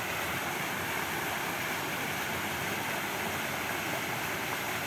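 Fountain water splashing steadily into its basin: an even rushing hiss with no breaks.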